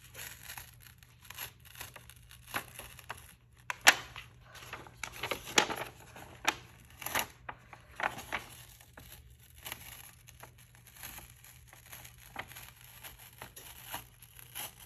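DTF transfer film being peeled slowly off a fabric tote bag, crackling and snapping irregularly as it pulls away from the adhesive, with the sharpest snap about four seconds in. It is tough to peel up, which she thinks may be from too much glue.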